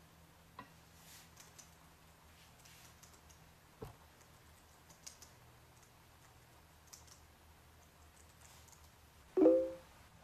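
Faint, scattered key clicks of a laptop keyboard being typed on. Near the end comes a short, much louder pitched blip, the alert of an incoming Facebook chat message.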